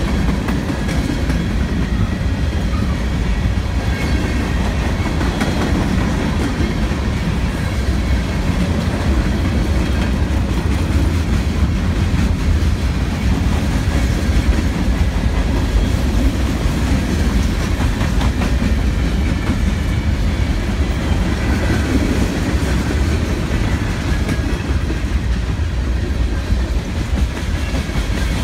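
Freight cars of a BNSF manifest train rolling steadily past close by: steel wheels on rail, with a constant clickety-clack of wheels over the rail.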